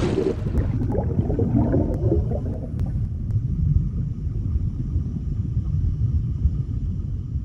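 Underwater sound effect: a steady deep rumble, with bubbly gurgling over the first two to three seconds and a few faint ticks.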